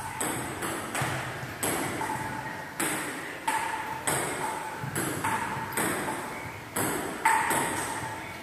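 Table tennis rally: a celluloid ball clicking off paddles and the table about twice a second, each hit ringing briefly and echoing in the room.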